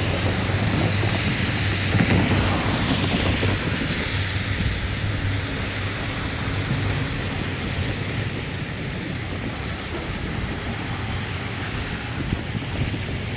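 Steady rush of rain and wind on the microphone over a low rumble that slowly fades.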